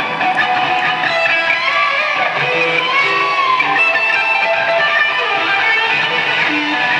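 Live rock band playing through an arena PA: loud, distorted electric guitar with bent, sliding notes over bass guitar and drums.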